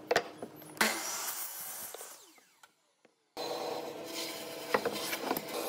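Compound miter saw cutting through a pine board about a second in, its blade winding down afterwards with a falling pitch. After a short silent break, a pen scratches marks on pine over a steady low hum.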